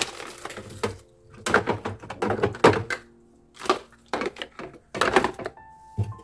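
Irregular knocks and clatter of hard objects being handled and set down, in a run of short bursts with a brief pause near the middle.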